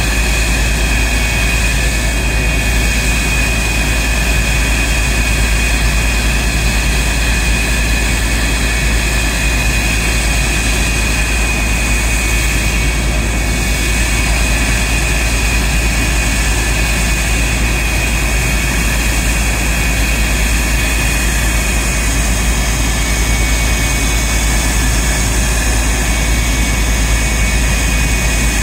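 Canadair CF-104D Starfighter's J79 turbojet running steadily on the ground: a loud, even jet noise with a steady high whine and no change in power.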